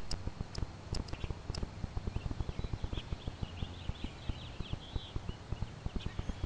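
Footsteps and camera-handling bumps as someone walks, with a brief run of high chirps, like birdsong, from about two and a half to four seconds in.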